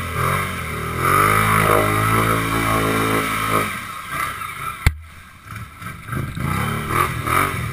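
ATV engine running and revving over an off-road trail, easing off a little past halfway, with one sharp knock just before the midpoint of the quieter stretch, then revving up again near the end.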